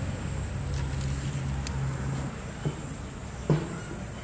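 Steady high-pitched chirring of insects, with a low hum underneath that stops a little past halfway. Two short knocks near the end, the second louder.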